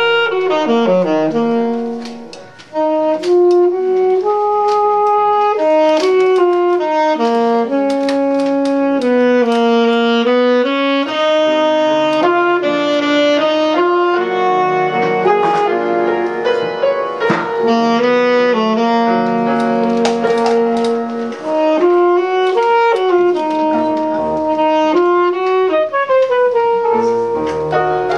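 Saxophone and piano playing live together: the saxophone carries a melody of held, gliding notes over piano accompaniment, with a brief dip about two and a half seconds in.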